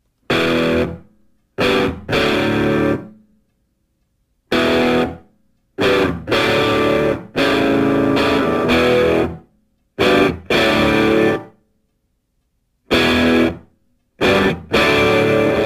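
Background music: guitar chords struck in short stop-start bursts with complete silences between them, running on without a break in the last second or so.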